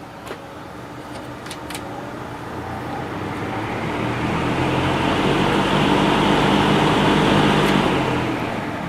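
Vintage Penncrest 50 box fan with its McMillan motor speeding up, the rush of air from the blades and the motor hum growing steadily louder over several seconds, then starting to fall off near the end. A few light clicks in the first two seconds.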